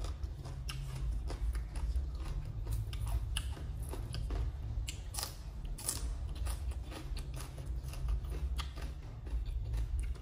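Close-up crunching and chewing of crisp raw green vegetables, a string of irregular crunches over a steady low hum.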